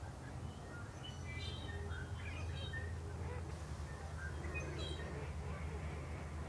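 Wild birds calling across a wetland, scattered short high chirps in two clusters, over a steady low background rumble.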